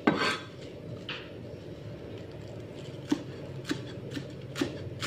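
Cleaver chopping greens on a thick round wooden chopping board: a loud knock at the start and another a second later, then, after a pause, steady chops about two a second.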